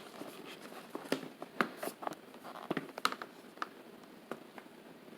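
Scattered light clicks and taps at irregular spacing from a new Asus laptop being handled as it is opened up.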